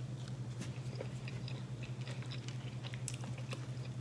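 A person chewing a mouthful of food close to the microphone, with many small irregular wet clicks and smacks. A steady low hum runs underneath.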